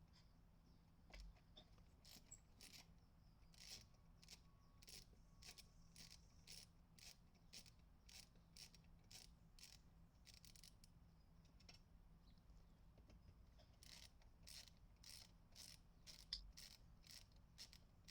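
Faint, crisp clicking in a steady rhythm of about two clicks a second, pausing for a couple of seconds midway and then resuming.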